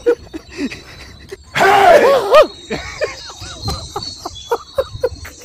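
Piglets squealing and grunting in short rising-and-falling calls, a few a second, with one louder, harsher squeal about a second and a half in.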